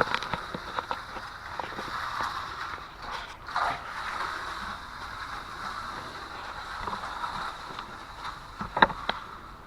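Hand trowel sliding back and forth over fresh concrete, a steady scraping swish with scattered small clicks and a sharp knock just under 9 s in.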